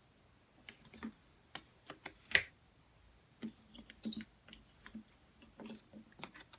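Jigsaw puzzle pieces being handled and pressed into place: a string of irregular light clicks and taps, the sharpest about two and a half seconds in.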